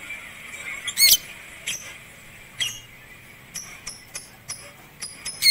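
Shrill bird chirps and squeaky calls. There is a sharp call about a second in, a few scattered ones, then a run of short chirps about three per second, ending in a loud call.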